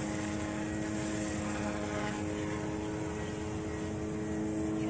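Eachine E180 RC helicopter, its main and tail rotors each driven directly by a brushless motor, holding an inverted hover: a steady whine and hum from the motors and spinning blades at an unchanging pitch.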